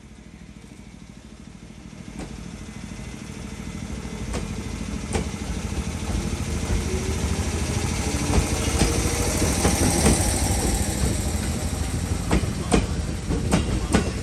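JR 205 series 600 electric multiple unit pulling away and gathering speed. The motor whine rises in pitch about halfway through, and the rumble grows louder, with sharp clacks as the wheels cross rail joints and points, coming closer together near the end.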